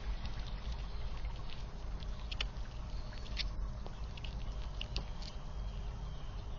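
A squirrel scrabbling and feeding at a plastic dish, giving a scatter of short, sharp clicks over a steady low rumble from the outdoor camera's microphone.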